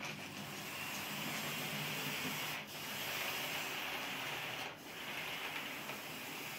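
H0m model train, a Bemo Rhaetian Railway Ge 4/4 I electric locomotive with its coaches, running past on model track: a steady rushing of small wheels rolling on the rails over a low motor hum, dipping briefly twice.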